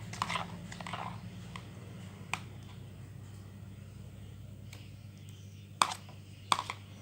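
Freshly made glue slime being handled, giving short sharp clicks or pops: one a couple of seconds in and two close together near the end, over a low steady hum.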